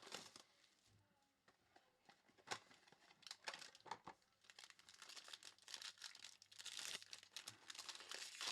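Faint crinkling and tearing of trading-card pack wrappers being opened by hand: a few separate crackles at first, then steadier rustling through the second half.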